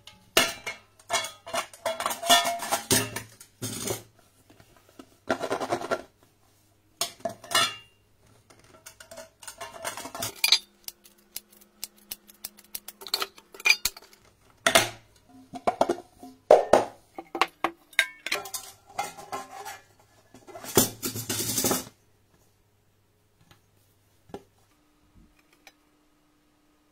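Nonstick metal springform cake pans being handled: the ring's clasp worked, and the ring and removable base clanking, clicking and scraping against each other in irregular bursts. The handling stops a few seconds before the end.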